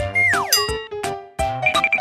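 Playful background music with a steady, quick beat; early on a synth tone holds briefly and then slides sharply down in pitch, and near the end a quick run of short, high tinkling notes plays.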